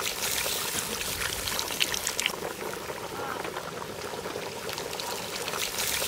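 Curry bubbling at a hard boil in a large open wok while cut drumstick (moringa) pods are tipped in, splashing and plopping into the liquid a few times.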